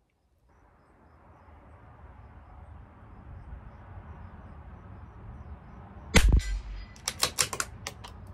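A single shot from a CZ 457 LRP bolt-action .22 LR rifle about six seconds in, followed within about a second by a quick run of five or six sharp metallic clicks as the bolt is worked to eject the case and chamber the next round.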